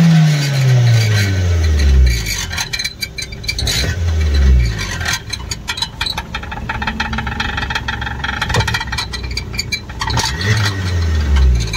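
Suzuki Baleno engine revved three times, each rev falling back to idle, with a rattle underneath from the exhaust silencer shaking against the body. The rattle comes from the silencer touching a strip under the car that was bent on a potholed road.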